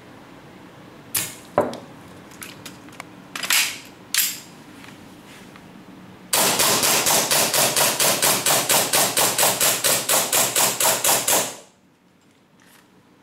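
Gas blowback airsoft pistol (a steel-slide M&P-type, the Costa signature model) firing a fast string of about thirty shots, some six or seven a second, each a sharp crack over a steady hiss, cut off suddenly as the magazine runs empty and the slide locks back. Before the string, a few short hisses and clicks.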